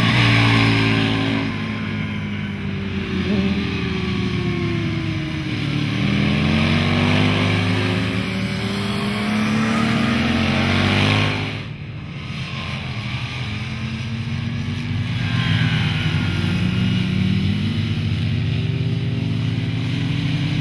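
Aprilia Tuono 1000 R Factory's V-twin engine running hard at speed, its pitch rising and falling repeatedly as it revs through the gears. There is a brief sharp drop in level about twelve seconds in.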